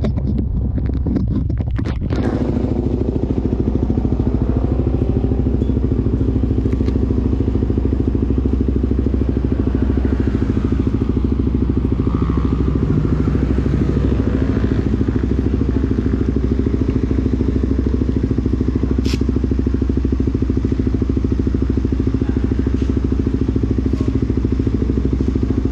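Sport motorcycle engine idling steadily from about two seconds in. Before that come clicks and rubbing from a hand handling the camera.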